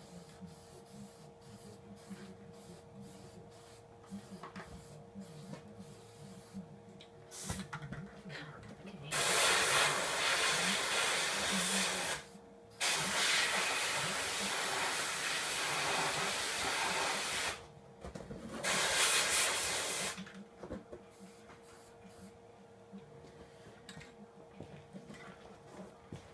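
Aerosol spray-paint can spraying black paint in three long bursts of hiss, starting about nine seconds in: about three seconds, then about five seconds, then a shorter one-and-a-half-second burst.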